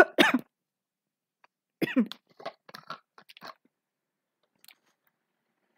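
A person coughing: once right at the start and again about two seconds in, followed by a few faint short clicks.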